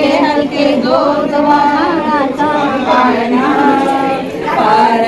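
Women's voices singing a slow Marathi cradle song (lullaby), with long held notes that bend up and down.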